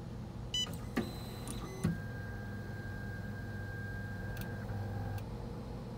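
Stepper motors of a Monoprice Maker Select Plus 3D printer homing its X, Y and Z axes: a short touchscreen beep, then a steady motor whine for about three seconds, with a lower whine joining near the end and two short clicks.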